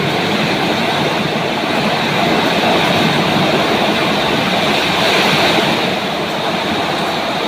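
Strong storm wind blowing, a loud, steady rushing noise that swells slightly now and then.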